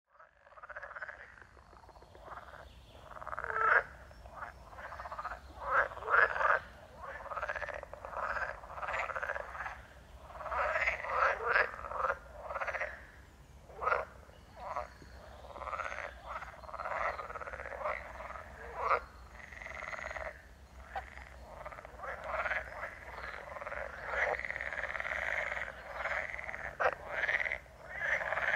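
A chorus of many frogs croaking, their calls overlapping without a break, with louder individual calls standing out every second or so.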